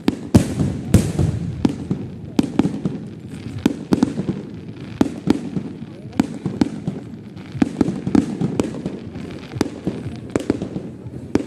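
Fireworks display: an irregular run of sharp bangs and crackles from bursting shells, a few a second, with a hiss just after a big bang near the start.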